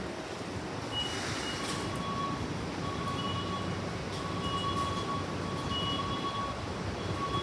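Keikyu train running at the station: a steady rumble and hiss, with a high electronic tone sounding on and off from about a second in.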